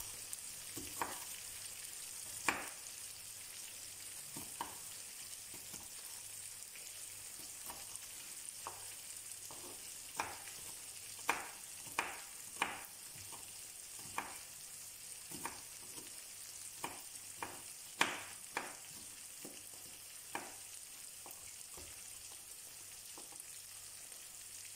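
Kitchen knife mincing garlic on a wooden cutting board: irregular, fairly quiet knocks of the blade on the wood, over a steady hiss.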